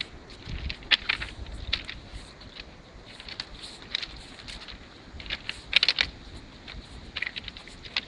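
Footsteps crunching on the loose crushed-stone ballast of a railway track, an irregular run of sharp crunches with the loudest about a second in and near six seconds.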